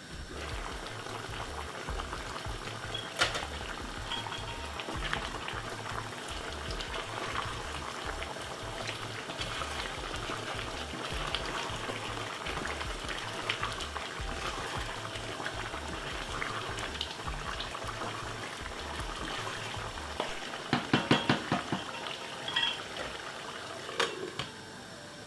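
Chicken stew bubbling and crackling in a pot as it simmers in its own juices, with scattered pops and a brief cluster of louder knocks about 21 seconds in.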